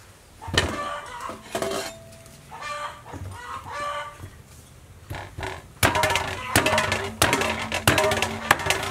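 A cleaver chopping a fish head on a wooden chopping board: a quick run of sharp chops in the second half, the loudest sounds here. Poultry call repeatedly in the background, mostly in the first half.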